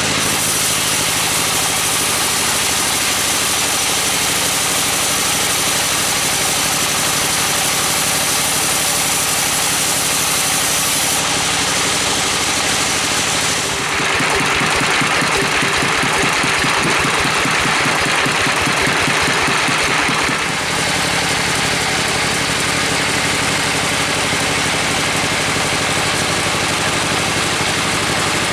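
Engine of sawmill machinery running steadily. About halfway through, for some six seconds, the sound changes to a brighter, fast-pulsing run, then goes back to its earlier steady note.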